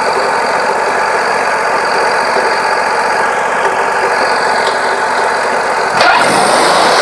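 Wood-Mizer LT40 Wide hydraulic sawmill's engine running steadily. About six seconds in there is a sharp click, and the noise shifts to a louder, brighter, steady hiss.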